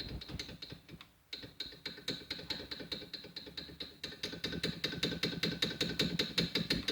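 Rapid, even mechanical clicking, about six clicks a second, pausing briefly about a second in.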